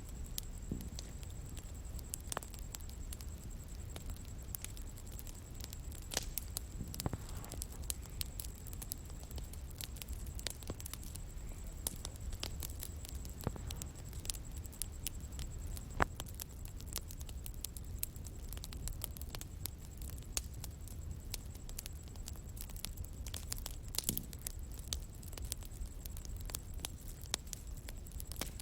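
Bonfire crackling: irregular sharp pops and snaps over the low, steady rumble of the burning wood, with a faint steady high-pitched tone behind it.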